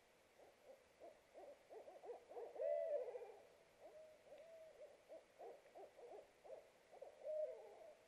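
A pair of barred owls hooting in a duet: a run of quick, uneven hoots with two louder drawn-out, arching hoots, about three seconds in and near the end.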